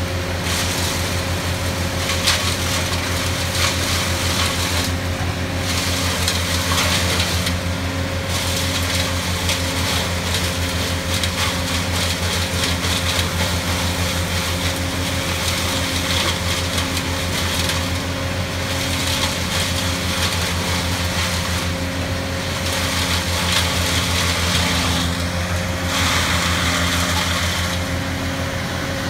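Brush chipper running steadily, with a harsh grinding as branches are fed in and chipped; the chipping comes and goes in long stretches over the engine's steady hum.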